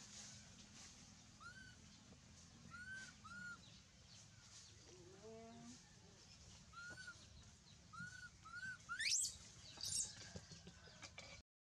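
Faint background bird chirping: short arched chirps repeated at irregular intervals, with a sharp rising squeal about nine seconds in. The sound cuts out completely for a moment near the end.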